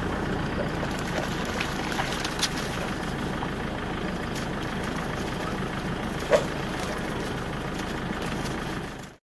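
Safari game-drive vehicle's engine idling steadily, with a few faint clicks and one sharp knock about six seconds in. The sound fades out just before the end.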